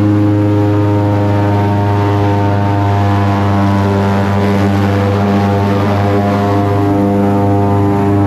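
Airboat's engine and air propeller running steadily and loudly with an even pitch.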